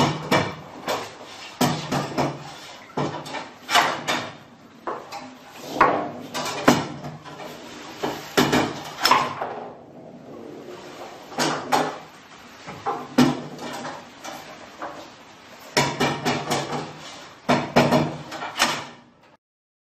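Foosball table being played: irregular hard clacks and knocks of the rods and plastic player figures, coming in quick clusters with short pauses between.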